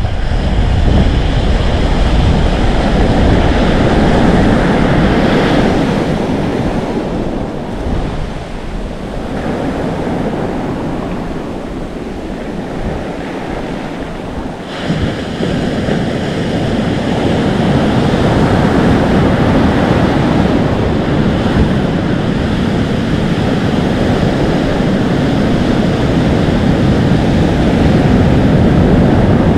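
Atlantic Ocean surf breaking and foaming on the shore in a continuous rushing wash, with wind blowing on the microphone. The wash eases for a few seconds near the middle, then a fresh wave surges in about halfway through and the roar builds again.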